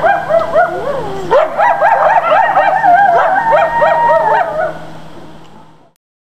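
A group of coyotes yipping and howling together, many quick warbling yelps rising and falling over one another, fading out about five seconds in.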